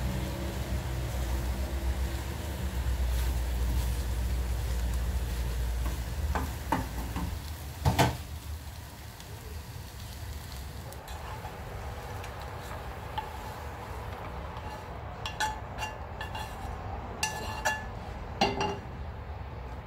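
Egg and tomato frying in a nonstick pan, stirred and scraped with a wooden spatula, with a faint sizzle. A sharp knock comes about eight seconds in, then scattered light clicks and taps near the end.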